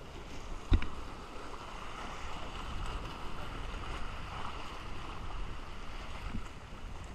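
Steady wash of wind and sea water around a small fishing boat, with one sharp knock, something hard striking the boat or gear, about a second in.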